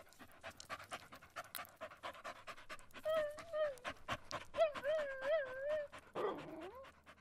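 A dog panting rapidly, in quick repeated breaths. About halfway through come two drawn-out vocal calls that waver up and down, then a short call that dips and rises near the end.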